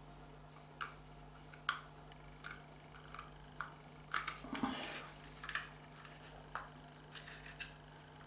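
Small sharp clicks and scrapes of a car's reverse light switch being pried apart by hand with a small tool, a dozen or so scattered taps with a short cluster about four seconds in.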